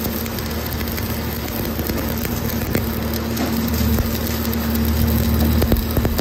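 Shielded metal arc (stick) welding on steel plate: the electrode's arc crackles and sizzles steadily, over a steady low hum, growing a little louder in the second half.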